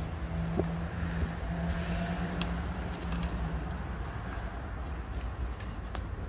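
Steady low rumble of traffic, with a low hum that stops a little over halfway through and a few light clicks.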